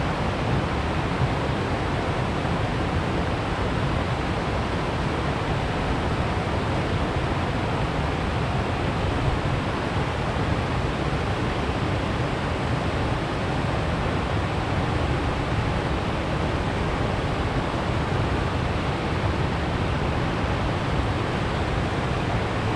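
Creek water cascading over stepped rock ledges and a small waterfall: a steady, unbroken rush of falling water.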